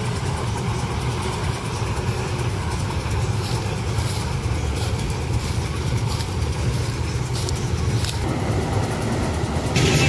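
Engines of a maize combine harvester and the tractor pulling its grain trailer running steadily under load through the field, with irregular clattering over the steady rumble.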